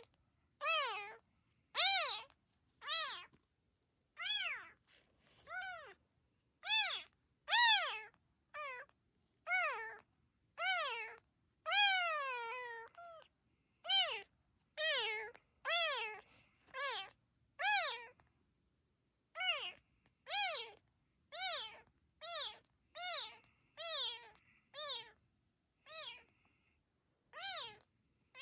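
Very young calico kitten meowing over and over, about one cry a second, each one high and thin and arching up then down in pitch. One longer cry, falling in pitch, comes near the middle.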